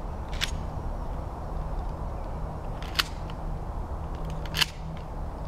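Three short, sharp clicks spread over a few seconds, the loudest about three seconds in, over a steady low background noise.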